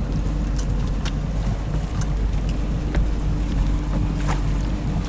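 Fishing boat's engine running steadily: a continuous low drone with a steady hum, under wind noise, with a few light knocks.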